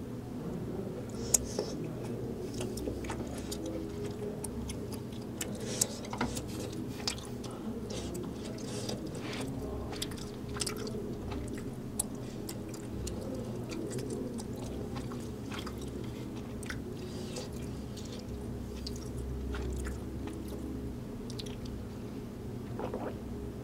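Close-miked chewing of chewy tteokbokki rice cakes, with irregular wet mouth clicks and smacks over a steady low hum. Near the end there is a sip from a small paper cup.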